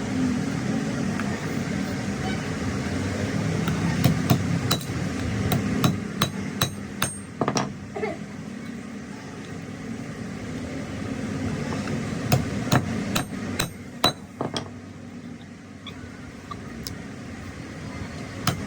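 A hammer striking metal: two runs of sharp, ringing blows, the first starting about four seconds in and the second about twelve seconds in. A low steady hum runs underneath.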